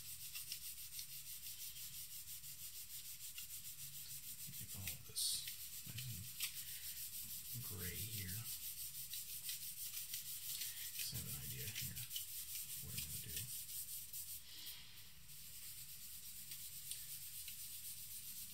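Stick of charcoal scratching across drawing paper in quick, repeated back-and-forth strokes as a large area is shaded dark.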